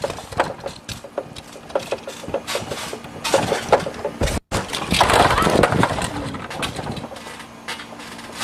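Toys and small hard objects clattering and knocking together, many quick knocks, louder after a short break about halfway through.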